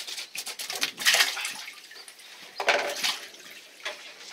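Water splashing and gushing in irregular bursts, with two louder surges about a second in and just under three seconds in.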